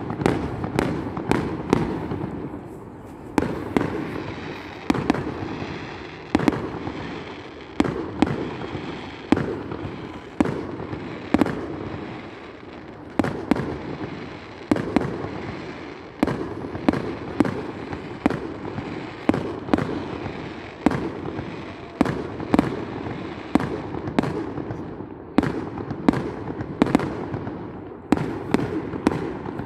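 Fireworks display: shells bursting in quick succession, several bangs a second at times, each followed by crackling and echoing.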